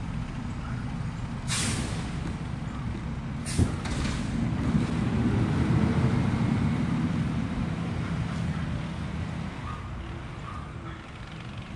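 Distant garbage truck's diesel engine running, with two air-brake hisses, a longer one about a second and a half in and a short one two seconds later. The engine then rises for a few seconds and slowly dies away as the truck pulls off.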